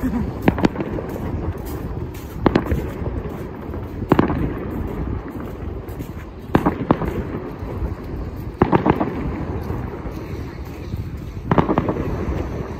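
Fireworks salute going off: single sharp bangs of shells bursting about every two seconds, each trailing off in an echo, sometimes two in quick succession.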